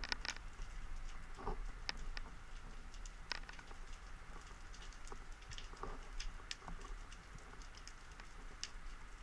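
Underwater ambience heard through a diving camera: irregular sharp clicks and ticks scattered through, over a faint steady hiss.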